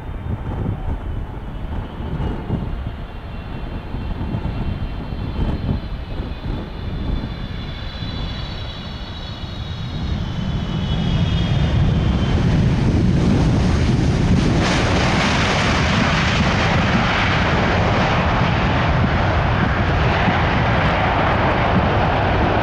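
Boeing 777 jet airliners landing: a high engine whine that drifts slowly down in pitch on approach, then from about halfway a louder, steady engine roar as a 777 freighter slows on the runway after touchdown, typical of reverse thrust.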